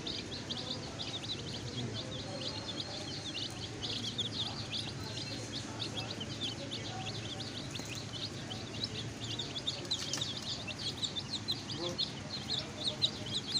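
A flock of baby chicks peeping continuously: many short, high chirps overlapping at a rapid, irregular rate.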